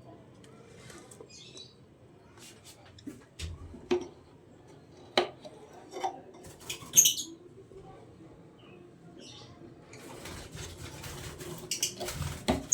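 Lovebird moving about, with scattered sharp clicks and knocks and a few short, faint chirps; the clicking grows denser near the end.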